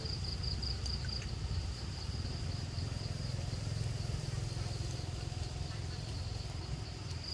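Outdoor background: a steady low rumble, with an insect's high, pulsing buzz for about the first second before it fades.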